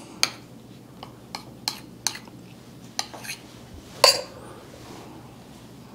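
A kitchen utensil tapping and clinking against a plate while rice is pressed in level with the rim: a run of light taps, then a sharper clink with a brief ring about four seconds in.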